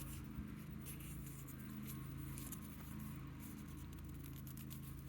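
Faint rustling and light ticks of a football jersey and its tags being handled, over a steady low hum.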